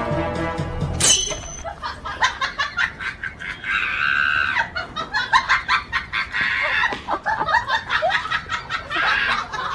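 Chickens squawking and clucking in alarm while tussling with a dog, amid a rapid clatter of short scuffling noises. A louder squawk comes about four seconds in and another near the end. Background music cuts off about a second in.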